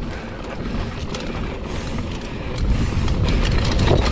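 Mountain bike riding fast downhill over a rough dirt trail: wind buffeting the microphone with a heavy rumble, with rattles and knocks from the bike over the bumps. The rumble gets louder about two and a half seconds in.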